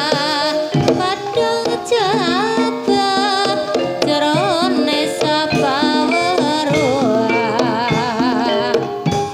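Live jaranan dangdut music for an ebeg dance: hand drums keep a steady beat under a loud, wavering melody line with heavy vibrato.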